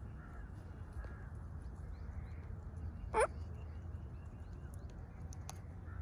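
A parrot gives one short, loud squawk that rises in pitch about three seconds in. A steady low rumble runs underneath, with faint chirps of small birds in the background.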